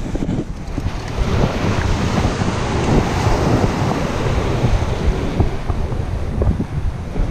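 Surf washing over jetty rocks, with wind buffeting the microphone in a steady, uneven rumble.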